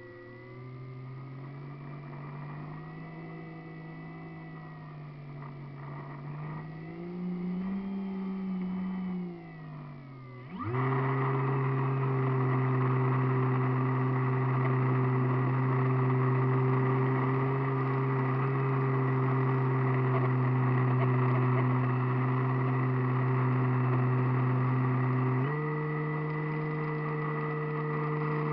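Radio-controlled model airplane's motor and propeller, heard from a camera on board. The pitch wanders up and down at part throttle, then about ten seconds in it rises sharply to a louder, steady high-throttle sound, and steps up slightly again near the end.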